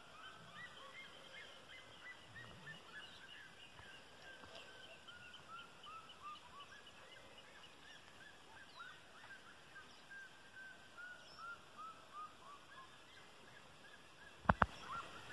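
Distant birds calling: a long run of short repeated call notes, several a second, slowly falling in pitch. Two sharp knocks come near the end.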